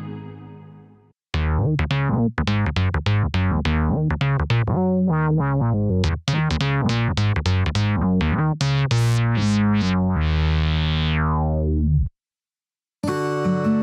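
Yamaha MODX synthesizer playing a quick run of short notes over a bass line, each note starting bright and quickly dulling. It ends on a held chord that darkens steadily and cuts off suddenly. After a short gap a new patch starts near the end.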